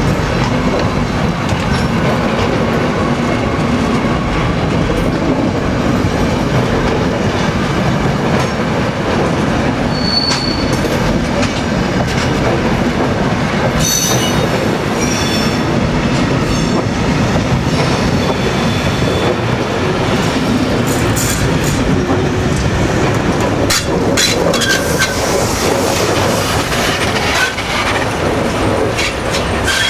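Railway passenger coaches rolling past on a curved track, their wheels clattering steadily over the rails. A few brief high-pitched wheel squeals come around the middle, and sharp clicks follow later.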